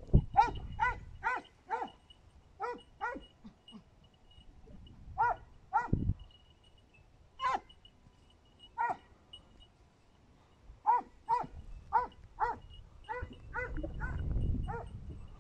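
Hunting hounds giving voice on a hare's trail: short, high yelps repeated in irregular volleys of two to five. A low rumbling noise swells near the end.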